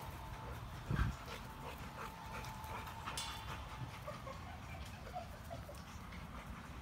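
Dogs playing on grass, heard as faint panting and movement, with a dull thump about a second in and a brief high-pitched cry just after three seconds.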